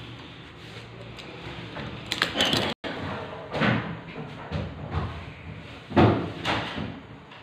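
Irregular knocks and thumps of a kitten batting at a notebook and pen and shifting about on a closed laptop on a desk, with a quick clatter about two seconds in and the loudest thump about six seconds in.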